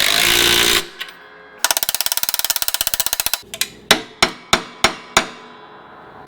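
A power tool runs with a fast rattle and stops about a second in, and a second rapid rattling burst follows. Then come about six sharp metal knocks, evenly spaced, each ringing briefly, as the mower's roller bracket is worked into place.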